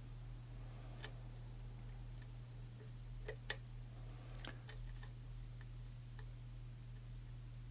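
Lock picks clicking faintly and irregularly against the pins and cylinder of an EVVA-based challenge lock, with one sharper click about three and a half seconds in, over a steady low hum.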